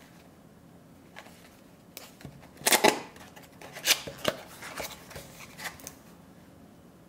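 Small paperboard box being opened by hand: a series of sharp snaps, clicks and scrapes as the cardboard flaps are pulled open, starting about two seconds in and loudest about a second after that.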